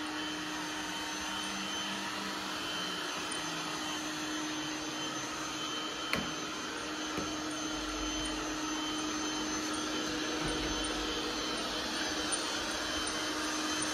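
Robot vacuum cleaner running: a steady suction hum with a constant low tone, and one sharp click about six seconds in.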